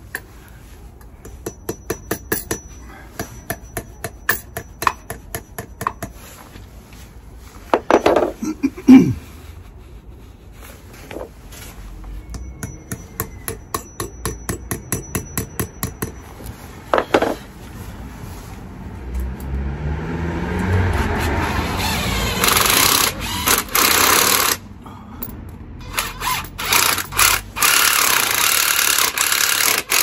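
A claw hammer tapping lightly and quickly on wall plugs through a key safe into a masonry pillar, with a few harder blows. About two-thirds of the way through, a cordless drill-driver spins up and runs in several loud bursts with short pauses.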